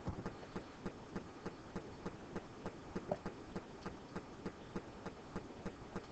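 Faint, regular ticking, about three ticks a second, over a low hiss.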